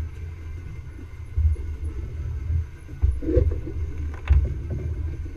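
Low, uneven rumble in surges aboard a fishing boat at sea, with two sharp knocks about three and four seconds in.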